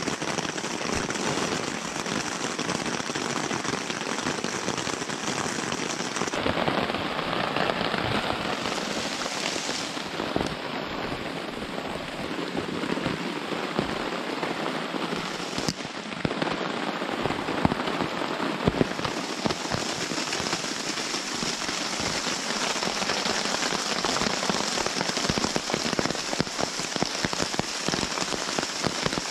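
Heavy rain falling on a tent fly and a nylon tarp: a dense, steady hiss of rain with many sharp single drop hits.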